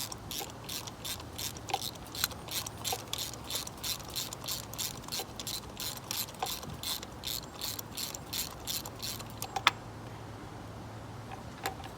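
Socket ratchet with an extension and 5/8 spark-plug socket clicking in steady strokes, about three a second, as a spark plug is unscrewed. The clicking stops after a sharp, louder click about ten seconds in, with one more click near the end.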